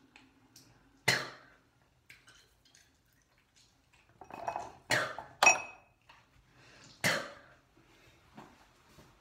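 Dishes and cutlery clinking as they are handled: a few sharp knocks, a second in, twice in quick succession about five seconds in, and once more about seven seconds in. The second of the pair rings briefly.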